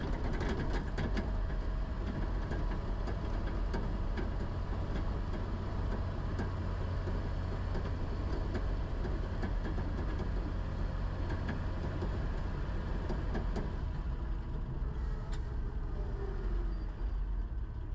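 Off-road vehicle driving along town streets: a steady low engine drone with road noise.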